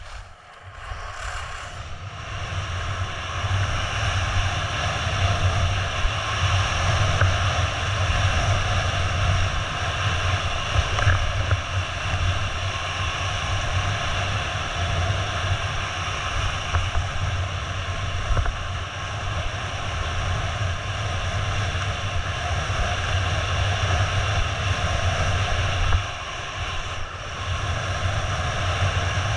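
Wind buffeting a body-worn camera's microphone as a skier descends, a steady low rumble, with the hiss of skis sliding over packed snow. It builds up over the first two seconds as the skier picks up speed and dips briefly near the end.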